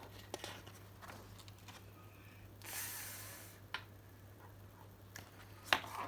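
Faint handling noises in a quiet room over a low steady hum: a few light clicks and a brief rustling hiss about three seconds in.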